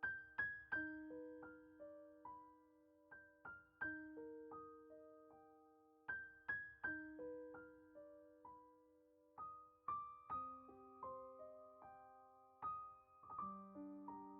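Soft solo piano music: a slow, gentle melody of single struck notes that ring and fade, with lower chord notes entering near the end.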